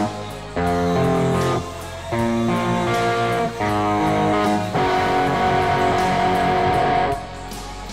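Electric guitar playing a song: held chords and notes ring out and change about every second, with short dips between phrases and a low bass part underneath.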